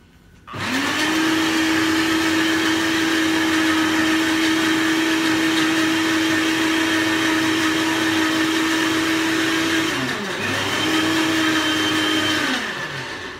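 Electric countertop blender running, blending chopped potato and aloe vera gel into a juice. The motor starts about half a second in and runs steadily. Near ten seconds it slows to a brief stop, then runs again for about two seconds and winds down.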